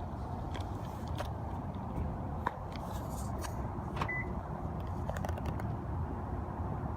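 Steady low outdoor rumble, like distant traffic, with scattered faint clicks and a brief faint beep about four seconds in.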